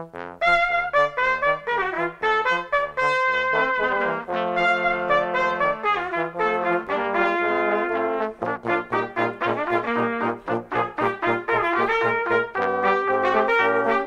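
Brass quintet of two trumpets, French horn and two trombones playing together: quick, short notes in the upper parts over a low line that moves in steps.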